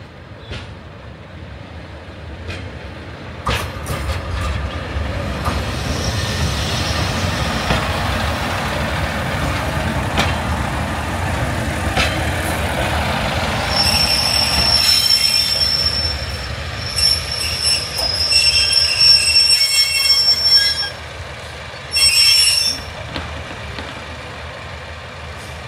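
Class 143 Pacer diesel multiple unit running in past the platform with a rising rumble and a few clicks from the wheels. From about halfway through, it gives a high-pitched squeal in several spells as it brakes to a stop.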